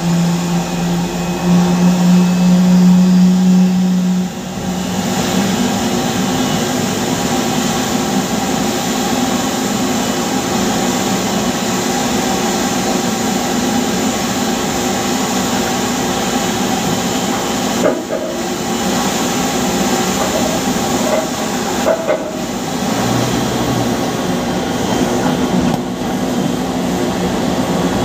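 Steady machine drone of a Boeing 777-300ER pushback on the apron, engine and turbine hum with a hiss over it. A strong low engine tone in the first four seconds drops away, leaving a steady hum.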